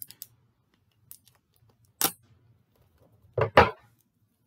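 A small sealed product package being handled: a sharp click about two seconds in, then two louder knocks close together near the end.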